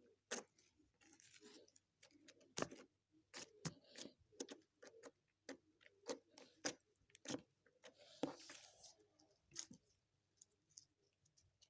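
Homemade slime being smeared and pressed directly on the microphone, giving irregular sticky clicks and wet pops, with one longer squelch about eight seconds in.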